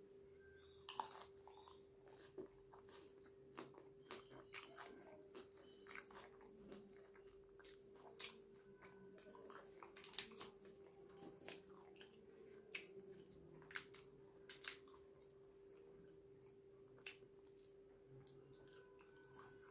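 Close-up mouth sounds of eating: biting and chewing naan wrapped around a raw onion ring, with irregular sharp crunches and wet mouth clicks. A steady low hum runs underneath.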